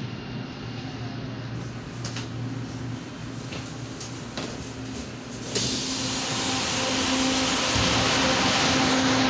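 Steady hum of a stopped LRT-2 light-rail train heard from inside the car. About five and a half seconds in, it jumps suddenly to a louder steady hiss and hum out on the platform beside the standing train.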